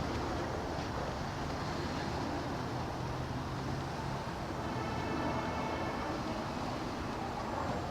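Street traffic noise from a jam of cars moving slowly past: a steady mix of engines and tyres.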